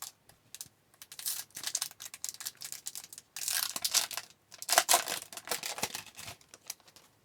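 Foil wrapper of a hockey card pack crinkling and tearing as it is opened, in a series of short, irregular rustles.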